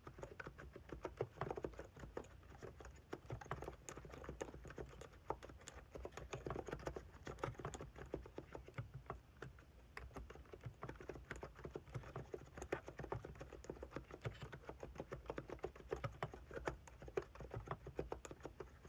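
Hansung GK868B keyboard with 50 g capacitive switches being typed on fast and continuously, a dense stream of keystrokes with no pauses.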